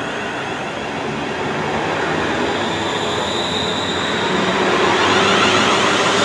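A London Northwestern Railway Class 350 electric multiple unit runs past along the platform: wheels rumbling on the rails under a high whine, growing louder in the last second or so.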